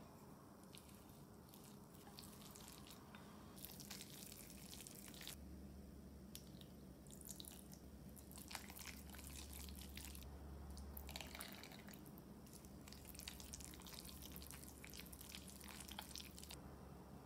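Chopsticks stirring sticky minced-pork and spring onion dumpling filling in a ceramic bowl as water is worked in: faint, irregular wet squishing and smacking in uneven bursts.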